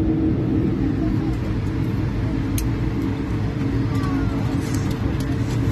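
Steady cabin noise of an Airbus A220-300 on the ground before takeoff, its Pratt & Whitney PW1500G geared turbofans running: an even low rumble with a steady hum over it.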